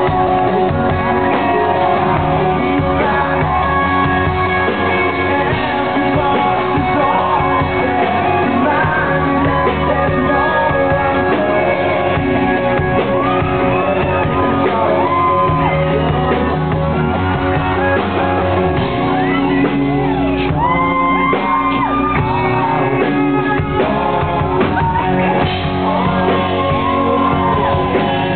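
Rock band playing live with a lead singer over electric guitars, drums and keyboard.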